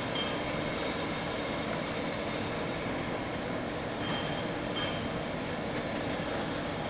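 Steady mechanical din of industrial plant machinery: an even rumble with a faint low hum underneath, and two brief high squeals about four and five seconds in.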